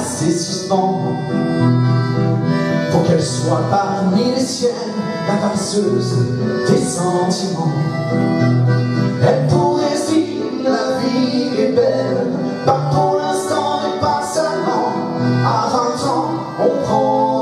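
Live folk song played by a small band: accordion and acoustic guitar accompanying a male singer.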